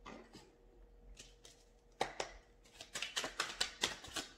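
A deck of tarot cards being shuffled by hand: a quick run of sharp card snaps beginning about halfway through, around five a second.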